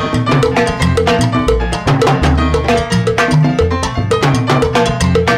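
Timbales solo over a salsa band: rapid stick strokes on the metal-shelled drums and cowbell, with the bass and the rest of the band playing underneath.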